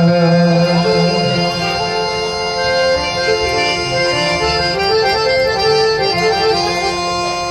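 Harmonium playing an instrumental passage of a devotional bhajan, a melody moving in steps from note to note over sustained reedy chords. A low held note at the start fades out about a second in.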